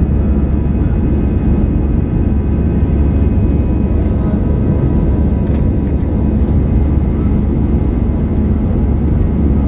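Steady roar of an Airbus A320's jet engines and rushing air, heard inside the passenger cabin, deep and unbroken.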